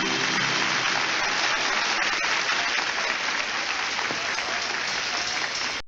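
Audience applauding steadily as the song ends, stopping abruptly near the end.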